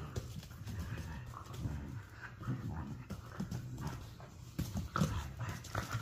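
Two coyotes play-fighting on a rug, their feet and claws scuffling and making scattered light clicks and knocks, with a few sharper knocks near the end.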